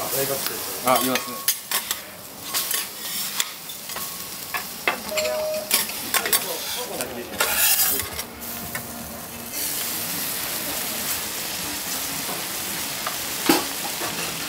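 Okonomiyaki with noodles frying on a hot iron teppan griddle: a sizzle with metal utensils clicking and scraping on the griddle over the first nine seconds or so. From about ten seconds in, an even steady sizzle with a single sharp click near the end.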